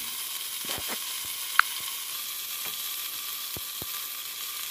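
Potato and cauliflower pieces sizzling in hot oil in an aluminium pressure cooker, being lightly sautéed: a steady hiss with scattered small crackles. A single sharp click sounds about one and a half seconds in.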